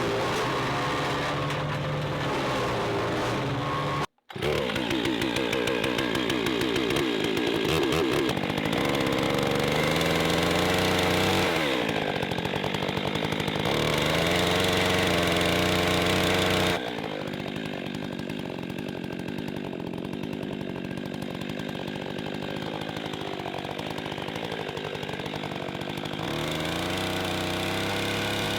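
Two-stroke chainsaw running and cutting wood, its engine pitch rising and falling, in several clips with a brief cut about four seconds in and a sudden change to a quieter, lower running sound past the middle.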